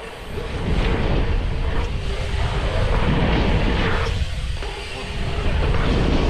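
Wind rushing over an action-camera microphone and dirt jump bike tyres rumbling on hard-packed dirt at speed through a jump line, easing briefly about four to five seconds in.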